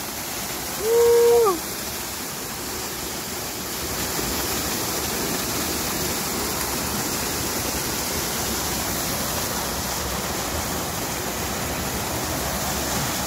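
Steady rushing of a small landscaped garden waterfall pouring into its pond, a little louder from about four seconds in. About a second in, a short voice sound is held on one note and drops at the end.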